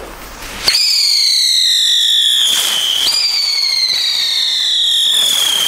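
Two Röder Feuerwerk Heulsusen, small screaming whistle fireworks that spin up into the air, whistling loudly. A shrill whistle starts about a second in and slowly falls in pitch, and a second whistle cuts in about three seconds in and falls the same way.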